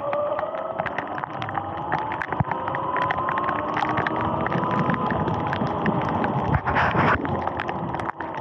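Sur-Ron electric dirt bike's motor whining and rising slowly in pitch as the bike gathers speed, over the hiss of tyres on a wet road. Many sharp ticks of raindrops hit the camera, and a brief louder rush comes about seven seconds in.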